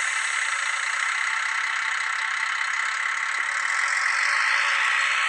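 Diesel railcar engine sound played by the Zimo sound decoder of a TT-scale Br650 model through its small speaker: a steady engine running with no bass, and a whine rising in pitch from about three and a half seconds in.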